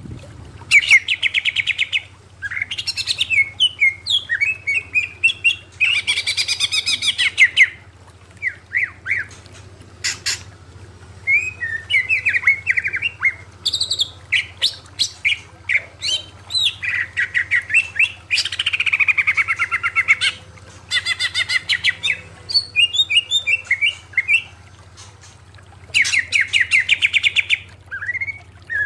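Cucak ijo (greater green leafbird) singing: repeated one-to-two-second bursts of fast rattling trills, broken up by varied chirps and single whistled notes, over a steady low hum.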